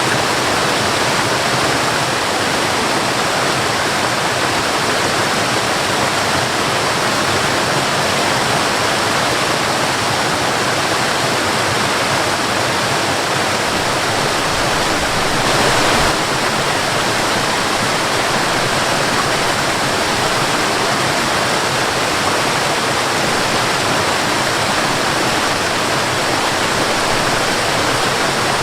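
Waterfall: a steady, even rush of falling water, with one brief louder swell about halfway through.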